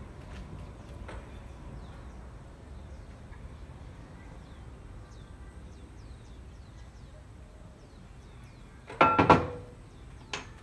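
Steel coupling parts, a toothed drive gear ring and flange plates, clanking against each other and a steel workbench as they are handled. One loud metallic clank with a short ring comes about nine seconds in, and a lighter knock near the end, over a low steady workshop hum.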